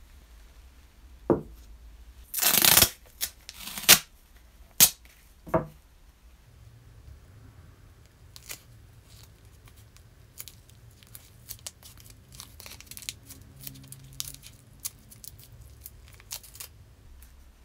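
Paper masking tape being torn off, with a loud half-second rip about two and a half seconds in and a few sharp clicks and knocks around it. Then the tape crinkles and crackles in small clicks as it is pressed and wrapped around the brass corkscrew body.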